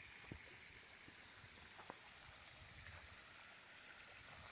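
Near silence: a faint steady hiss with a few faint ticks.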